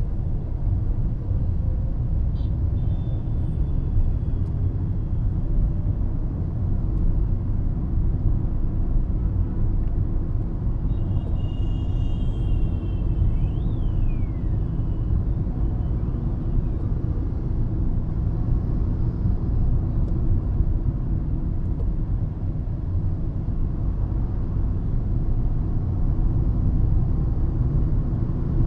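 Hyundai i20 car driving along a road: a steady low rumble of engine and tyre noise, with a few faint high tones briefly near the middle.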